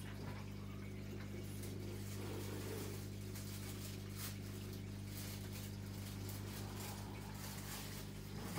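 Aquarium equipment running: a steady low pump hum with faint water trickling and splashing.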